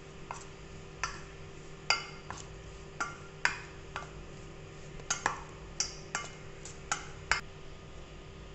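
A spoon clinking and scraping against a stainless steel bowl while mixing spiced raw chicken pieces, about a dozen sharp clinks at irregular intervals, each ringing briefly. A faint steady hum runs underneath.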